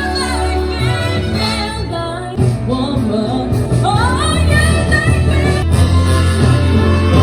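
A song with a woman singing a gliding melody over a steady bass line.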